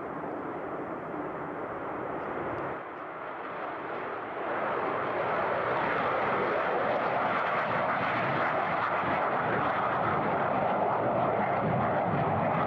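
Military jet engine noise from an aircraft on its takeoff run, a steady roar that grows louder about four seconds in and then holds.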